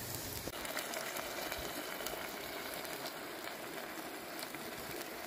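Food cooking in a pot: a steady hiss with fine crackling, as of sizzling or simmering.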